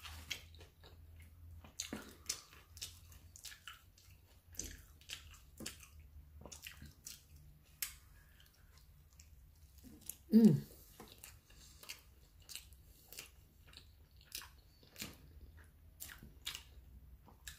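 Close-up eating sounds: a person bites into and chews a soft flour-tortilla taco, a steady run of small wet mouth clicks and smacks. A short voice sound falling in pitch comes about ten seconds in.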